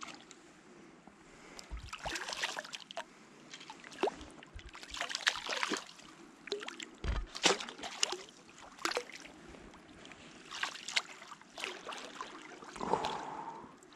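Irregular splashes and sloshes of a hand, a stick and a landing net working in shallow creek water while a small hooked brown trout is landed.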